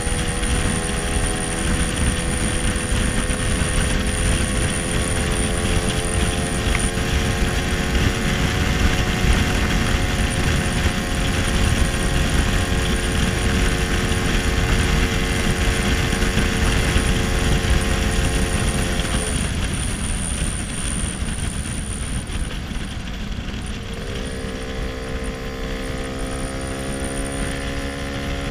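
1966 Lambretta SX 225 Mugello two-stroke scooter engine running at a steady cruise, with heavy wind rumble on the microphone. About two-thirds of the way in the engine note drops away as the throttle closes, then it comes back near the end, rising in pitch as the scooter accelerates.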